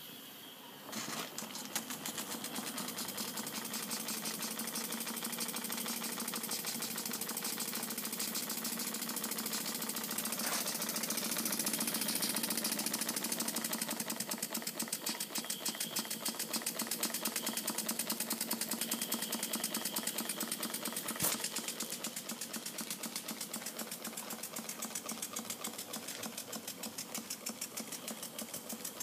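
Model entablature steam engine, fed from a Stuart 3500 boiler, starting up after a faint steam hiss and running with a rapid, even beat of exhaust and valve clicks. One sharper knock stands out about two-thirds of the way through.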